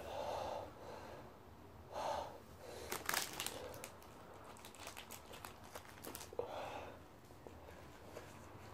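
A man breathing hard and gasping through the burn of a Carolina Reaper chili, in short breaths near the start, about two seconds in and again near the end. Around three seconds in comes the crinkle of a plastic wrapper being opened, with a little more crinkling a couple of seconds later.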